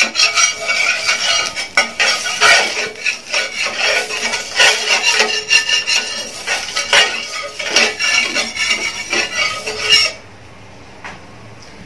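Steel ladle scraping and clinking round a flat metal porotta griddle (tawa), spreading oil over its surface; the scraping stops about ten seconds in.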